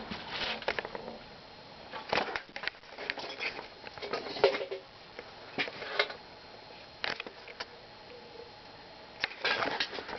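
1989 Fasco Charleston ceiling fan coasting down after being switched off off high speed, with irregular clicks and rattles, the loudest about four and a half seconds in.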